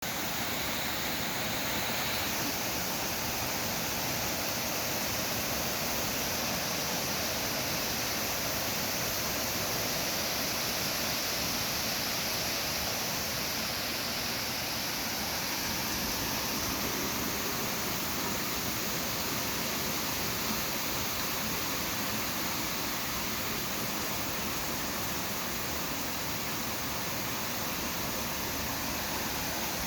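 Heavy typhoon rain pouring down in a steady, unbroken hiss.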